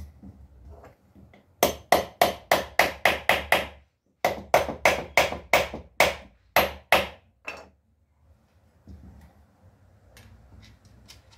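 Hammer blows on a wooden joint: two runs of quick, sharp strikes, about four to five a second with a short pause between, then a few faint taps near the end.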